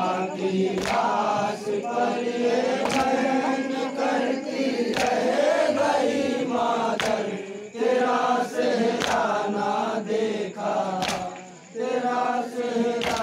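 A group of men chanting a nauha, a mourning lament, in chorus. Sharp unison beats come about every two seconds, typical of matam chest-beating in time with the lament.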